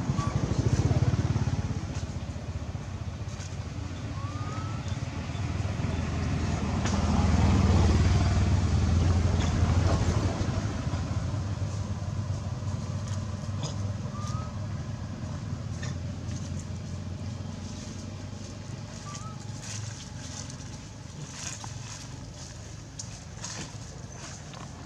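Low engine rumble of passing motor vehicles, swelling twice, once about a second in and again more strongly around eight seconds, then fading, with a few short faint chirps.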